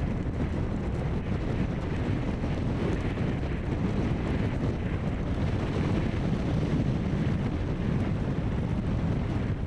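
Steady low rumble of strong blizzard wind buffeting the microphone, mixed with vehicle noise.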